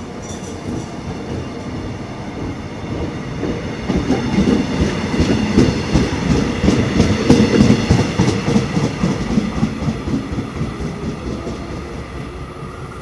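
Train running on the rails, its wheels clattering fast over the track. The sound grows louder to a peak about halfway through, then fades toward the end.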